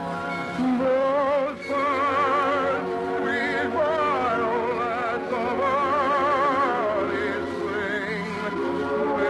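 Operetta music: an operatic voice sings long held notes with wide vibrato over an orchestra.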